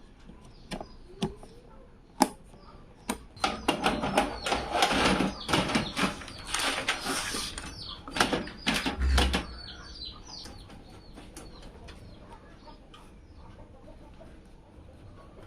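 Rustling and handling noise with many sharp clicks and taps, as PC parts and their plastic packaging are handled. It is busiest from about three and a half to ten seconds in, with a few lone clicks before that.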